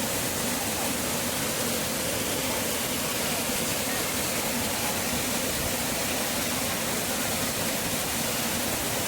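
Water cascading down a waterfall: a steady, even rush with no breaks or changes.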